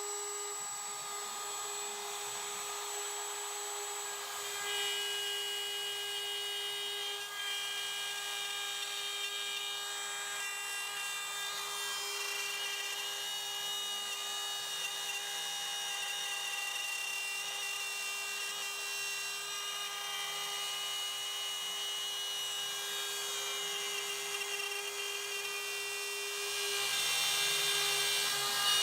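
CNC router spindle whining at a steady pitch as its bit cuts a wooden board, the cutting noise filling out about five seconds in and growing louder near the end.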